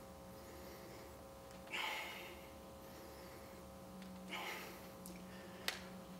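A man's faint effort breaths while lifting dumbbells: two short, forceful exhales about two and a half seconds apart, over a low steady hum, with a light click near the end.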